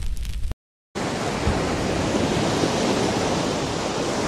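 Steady rush of ocean water noise, starting just under a second in after a short dead-silent gap.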